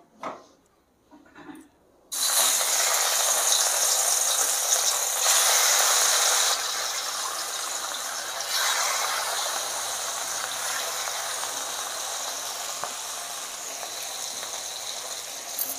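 Turmeric-and-salt-coated rohu fish pieces dropped into hot mustard oil in a kadai, a sudden loud sizzle starting about two seconds in. It gets louder again a few seconds later as more pieces go in, then slowly settles into a steady frying sizzle.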